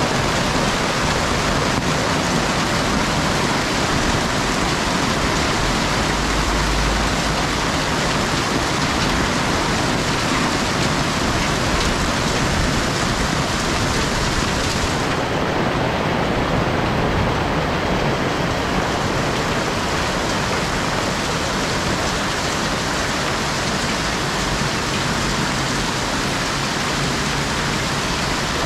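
Hailstorm: hailstones and rain pelting rooftops and the ground in a steady, dense patter.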